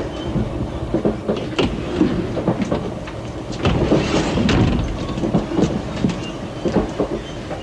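Passenger train running, heard from inside the carriage: a steady rumble with the wheels clicking over the rail joints, and a louder rushing swell about four seconds in.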